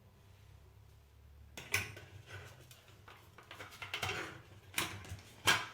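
Small steel blackhead-removal tools clinking and clicking as they are handled, with a few sharp metal clicks, the loudest near the end.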